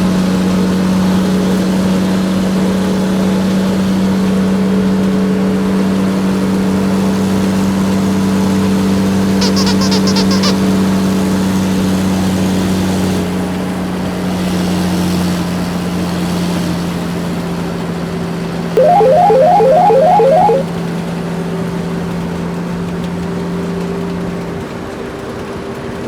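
A battery-powered toy vehicle running with a steady electric whir. About two-thirds of the way through comes a short, louder burst of rapidly repeated electronic chirps, like a toy's horn or siren effect.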